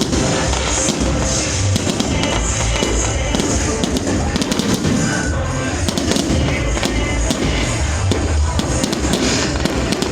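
Fireworks going off in quick succession, many sharp cracks and pops over low booms, with music playing throughout.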